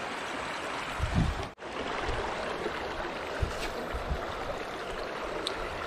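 Shallow river water flowing steadily over rocks, an even rushing, with a brief dropout about a second and a half in. A few soft low thumps, from handling of the rod and reel, sit under it.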